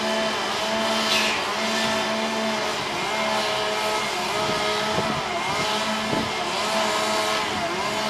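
Semi-trailer truck reversing: its engine runs under a reversing alarm that sounds in a repeating pattern, breaking off and starting again about once a second.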